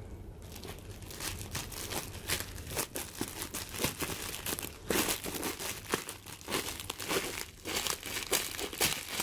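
Plastic packaging wrap, cling film over bubble wrap, crinkling and crackling as scissors cut through it and a hand pulls it apart. The crackles and snips come thick and irregular.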